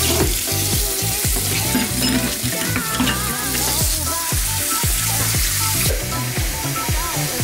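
Kitchen faucet running into a stainless steel sink as a steady hiss of splashing water, under background music with a steady bass beat.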